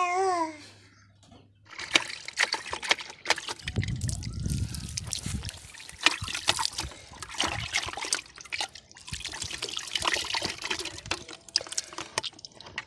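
Water splashing and trickling as a small child scoops water by hand from a plastic bucket onto its face, in irregular splashes. A child's short voice is heard at the very start, and there is a low rumble about four seconds in.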